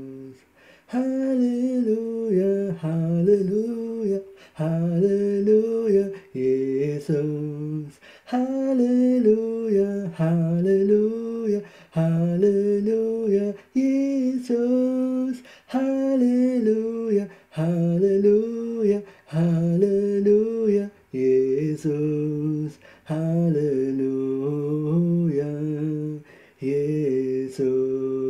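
A man singing a slow worship melody alone, without accompaniment, in short phrases with brief breaks between them.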